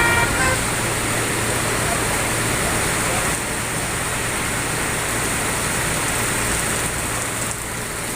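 A bus's multi-tone telolet horn plays its last short notes and cuts off about half a second in. After that a steady hiss with a low hum carries on.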